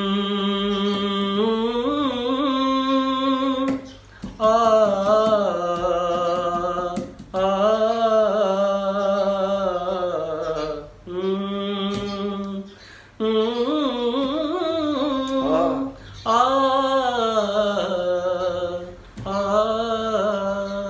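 A man singing a ghazal unaccompanied, drawing out long wavering notes in phrases of about three seconds with short breaths between them.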